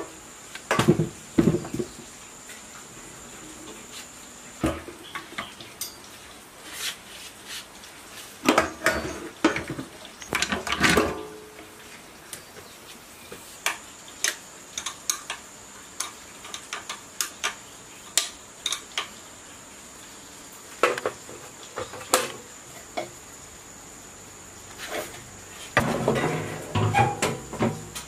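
Scattered metal clanks, taps and knocks as a petrol generator's engine-alternator unit and its steel tube frame are handled and bolted together, with a few clusters of quicker clatter.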